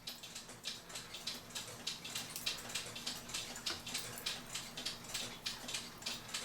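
Cuckoo clock weight chain being fed into the clock movement, its metal links clicking in a quick, irregular run of small ticks.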